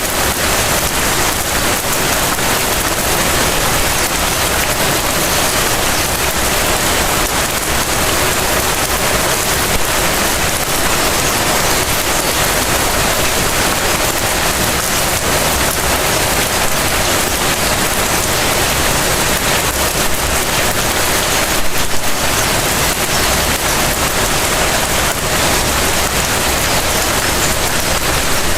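Light rain falling steadily on surfaces, an even hiss dotted with fine drop ticks, with a slightly louder spatter about 22 seconds in.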